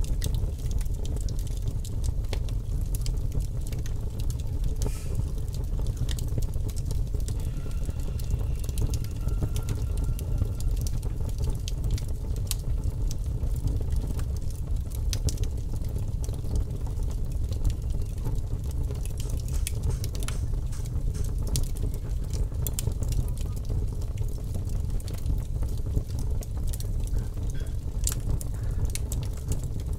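Fire crackling: scattered sharp pops and snaps over a steady low rumble of background noise.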